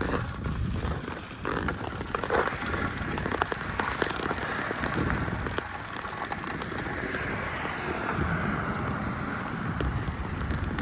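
Ice skate blades scraping and gliding over pond ice, with small clicks and wind on the microphone.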